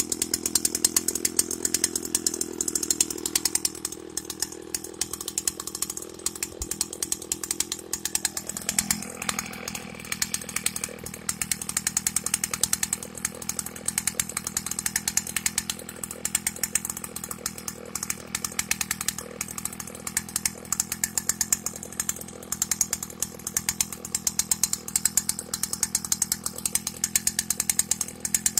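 Suzuki Max R 100 single-cylinder two-stroke motorcycle engine running steadily on a homemade mini tiller that drives its rotor tines by roller chain. The engine note drops slightly about four seconds in and rises again near nine seconds in.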